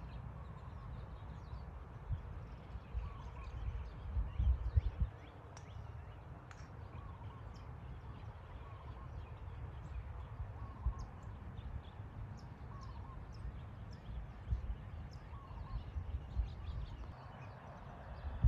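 Outdoor ambience of wind rumbling on the microphone, strongest in gusts about four to five seconds in, with small birds chirping throughout and a short bird call repeating every couple of seconds.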